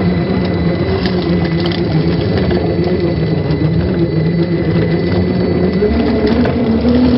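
A 1/10-scale RC crawler's electric motor and geared drivetrain whining steadily as it creeps over rock, the pitch stepping up a little about six seconds in.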